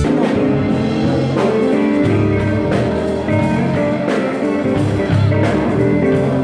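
Live band playing in a gallery room: electric bass guitar, keyboard and drums.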